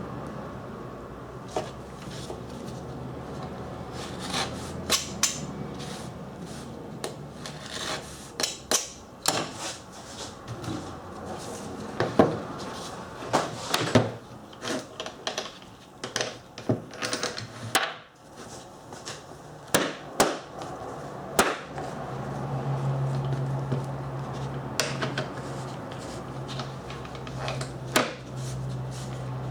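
Irregular knocks, clicks and clatters of tools and parts being handled on a workbench, some sharp and loud, some faint. About two-thirds of the way through a low steady hum comes in and keeps going.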